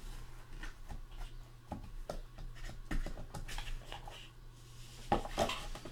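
Light clicks and rustling from trading cards and their packaging being handled, over a steady low electrical hum.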